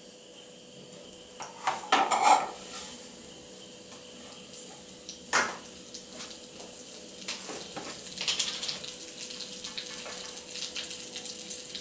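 Metal utensils knocking and clinking against a kadhai: a quick cluster of knocks about two seconds in and one sharp clack a few seconds later. From about eight seconds in, a crackling sizzle of whole spices frying in hot oil, with a faint steady hum underneath.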